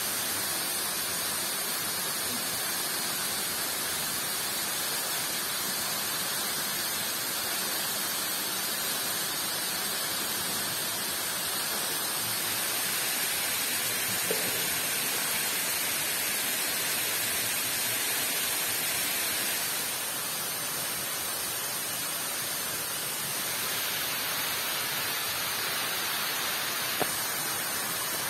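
Steady hiss of falling water, an even rush with no rhythm, and a couple of faint knocks.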